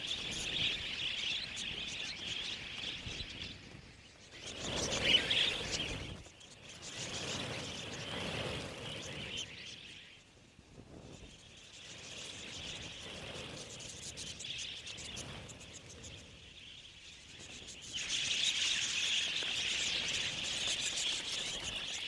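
A large flock of budgerigars chattering and twittering continuously in a dense high warble. There is a louder rush about five seconds in. The flock quietens around the middle and swells louder again near the end.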